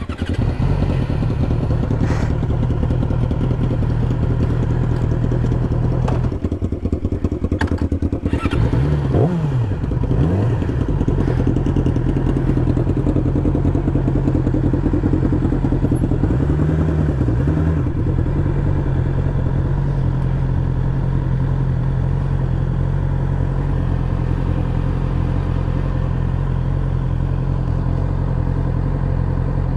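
2020 Yamaha YZF-R6's inline-four engine idling, with two quick throttle blips about nine to ten seconds in and a smaller one around seventeen seconds. A few light clicks sound in the first eight seconds.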